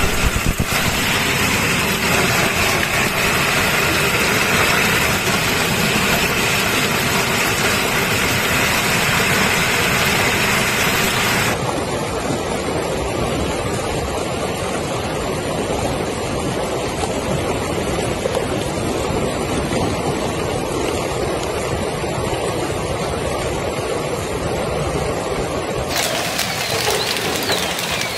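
Heavy hail and rain pelting down, a dense steady clatter of countless hailstones striking ground and surfaces. The sound changes abruptly about a third of the way in and again near the end, as one clip gives way to the next.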